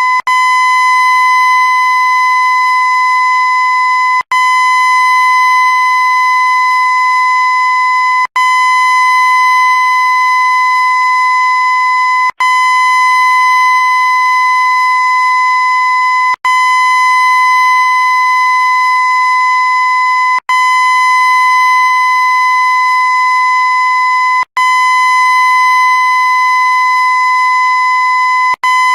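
Loud, steady high-pitched tone with a stack of overtones, played as a loop: it cuts out for an instant about every four seconds and starts again at once.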